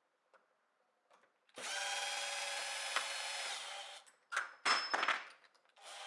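Power drill running in reverse to back out the screws of an old deadbolt: a steady whine for about two seconds, a few knocks, then a short second run of the drill near the end.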